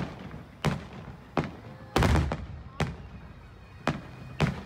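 Aerial fireworks shells bursting in a series of about seven sharp booms, spaced roughly half a second to a second apart. The longest and loudest boom comes about two seconds in.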